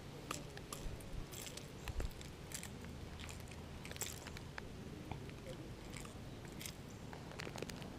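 Faint, scattered clicks and crackles of hands handling a caught bass and working the hook out of its mouth, with a louder knock about two seconds in.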